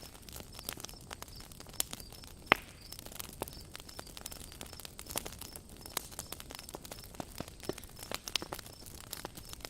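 Wood campfire crackling, with irregular small pops and one sharper pop about two and a half seconds in.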